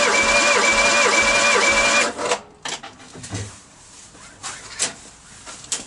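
Ford Pinto four-cylinder engine cranking over on its starter motor for a compression test. The starter's whine dips in pitch at each compression stroke, about two and a half times a second, and it stops a little over two seconds in, followed by a few light clicks. The tested cylinder reads slightly over 125 psi, a sign of sound piston rings.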